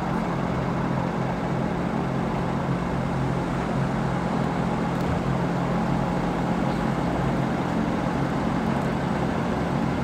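Steady vehicle noise: an even rush with a low, constant hum and no distinct events.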